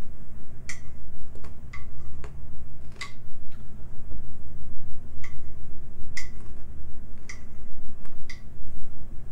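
Metal spoon clinking against a bowl, about a dozen short, irregular clicks with a brief ring, over a steady low hum.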